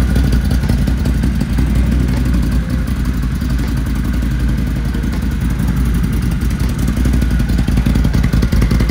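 Can-Am Renegade XMR 1000R's Rotax V-twin engine idling steadily, shortly after its first start out of the crate.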